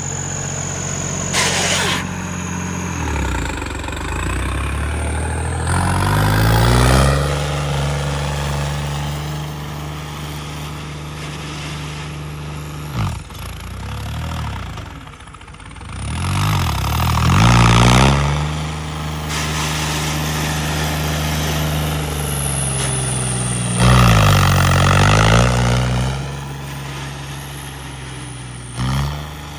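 A tractor engine revving hard under load. Its pitch drops and climbs again several times, with loud surges about a third of the way in, past the middle and near the end.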